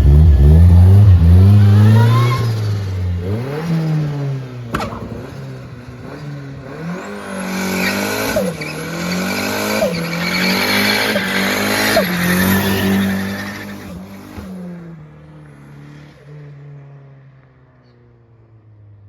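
Car accelerating hard away from a standing launch, very loud at first, its engine note climbing and dropping through five or six gear changes as it pulls off into the distance and fades out.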